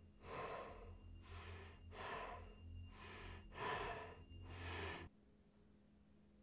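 A person breathing heavily and fast: six loud breaths, about one a second, that cut off suddenly about five seconds in.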